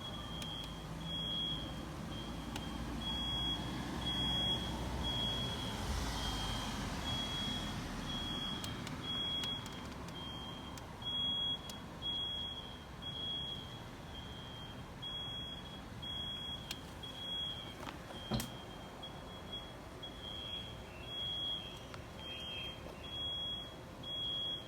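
Smoke alarm sounding, a short high-pitched beep repeating evenly a little faster than once a second, set off by smoke from a nearby fire. A low background rumble sits under it, fading after the first few seconds.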